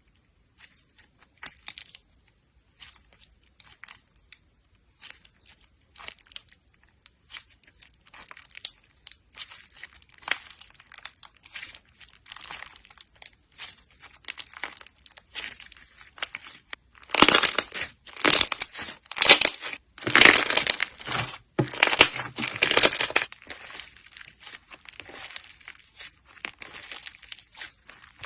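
Slime being kneaded and pressed by hand, giving scattered crackling, popping clicks. They grow much louder and denser for several seconds about two-thirds of the way through, then ease off.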